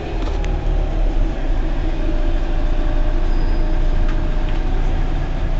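Mercedes-Benz Citaro G C2 articulated bus running with a steady low rumble.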